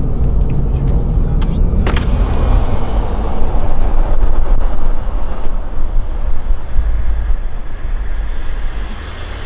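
Road noise inside a moving truck's cab: a steady low rumble of engine and tyres, with a single click about two seconds in.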